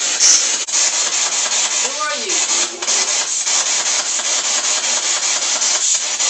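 Spirit box sweeping through radio stations. It gives out loud continuous static chopped into rapid pulses, with a brief snatch of a voice about two seconds in.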